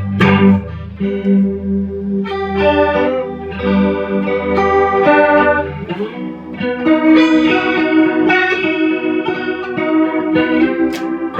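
Electric guitar played through an Electro-Harmonix Electric Mistress flanger pedal, ringing chords and single notes that change every second or two, with a sweeping, chorus-like shimmer on the tone.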